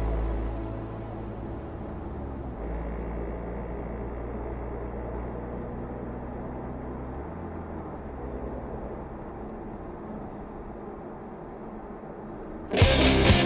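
Porsche's engine and road noise heard inside the cabin while driving: a steady low drone whose pitch steps a couple of times. Loud rock music cuts in near the end.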